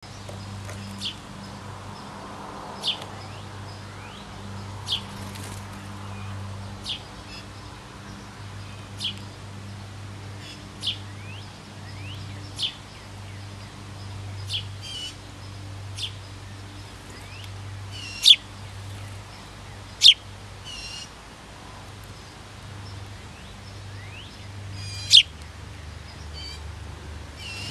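House sparrow chirping: single short cheeps repeated about every two seconds, a few of them louder later on. A steady low hum runs underneath.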